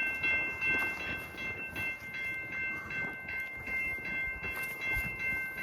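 Railroad crossing warning bell ringing rapidly, about three to four strokes a second, as a train approaches the crossing.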